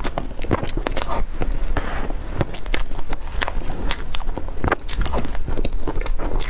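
Close-miked wet eating sounds of thick whipped-cream cake: soft squelching chews with irregular sharp lip smacks and clicks.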